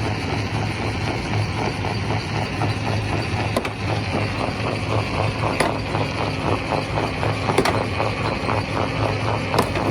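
Quarry primary rock crusher running: a steady low machine hum with a fast, regular churning beat, and a sharp knock about every two seconds.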